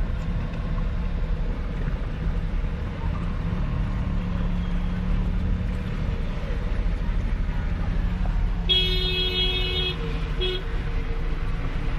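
Steady low rumble of a vehicle driving, heard from inside the cabin. Near the end a vehicle horn sounds for about a second, then gives one short second toot.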